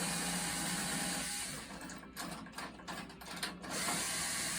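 A steady hiss of workshop noise that drops away for about two seconds in the middle, when irregular mechanical clicks and rattles take over.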